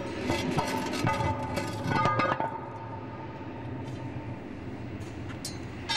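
Title music of short, bright chime-like notes, which stops about two and a half seconds in. A low, steady rumble follows, with a couple of faint clicks near the end.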